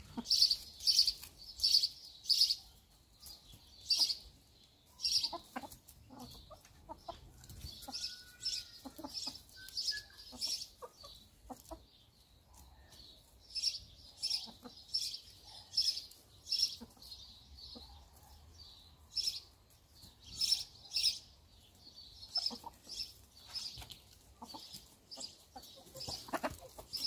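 Hens feeding, with soft clucks and pecks, under a run of short high chirps about twice a second that pause for a few seconds near the middle.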